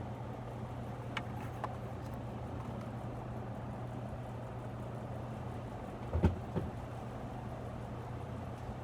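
Crompton Greaves Encon High Breeze ceiling fan running at speed: a steady rush of air from its four wooden blades over a steady low motor hum. Two faint clicks come a little over a second in, and a single thump about six seconds in.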